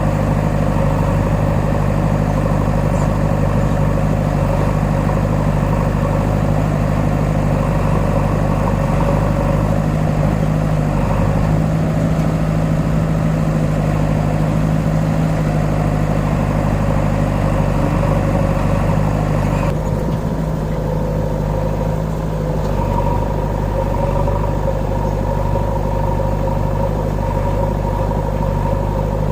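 Mahindra Arjun 555 tractor's diesel engine running steadily, with a slight change in its tone about two-thirds of the way through.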